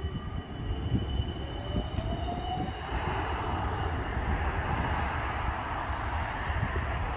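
Siemens Combino tram accelerating: a motor whine rises in pitch for the first three seconds or so, then gives way to the steady noise of the wheels rolling on the rails over a low rumble, with one sharp click about two seconds in.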